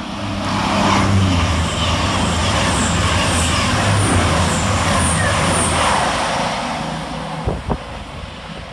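A pair of Cross Country Voyager diesel-electric units, a Class 221 and a Class 220, passing through at speed. Their underfloor diesel engines hum under the rush of wheels on rail. The sound builds over the first second, holds, and fades away about seven seconds in.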